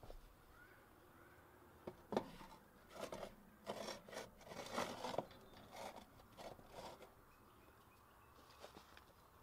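Light scrapes and taps of unfired clay plates being set down on a metal wire grill and against rough clay-and-rock walls. The sounds come in an irregular cluster from about two seconds in to about seven seconds, the sharpest tap near the start.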